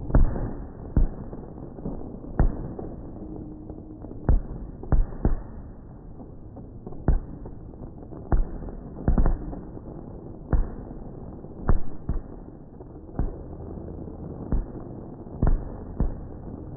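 Fireworks display: aerial shells bursting in a string of sharp bangs at irregular intervals, about one a second, some in quick pairs.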